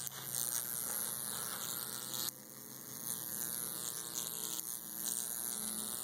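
Homemade Jacob's ladder's high-voltage arc buzzing between its two copper tubes, a steady electric hum. It drops away suddenly about two seconds in and then builds back up.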